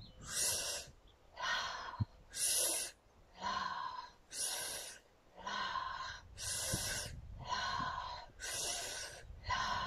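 Strong rhythmic breathing, one forceful breath about every second, alternating between a sharper and a softer breath: inhales and exhales paced to a side-to-side seated twist in a Kundalini yoga exercise.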